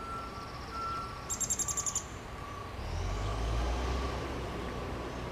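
Downy woodpecker nestlings begging: a short burst of rapid, very high chattering notes about a second in. A low rumble comes up after about three seconds.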